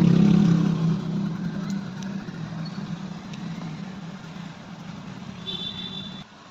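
A steady mechanical hum that fades over several seconds and cuts off suddenly near the end, just after a short high beep.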